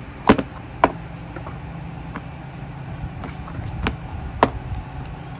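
A few sharp clicks or knocks, irregularly spaced, over a steady low hum.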